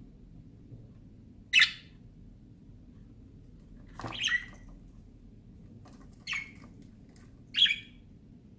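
Pet budgerigars giving four short, sharp squawking calls, one every two seconds or so, over a faint low background hum.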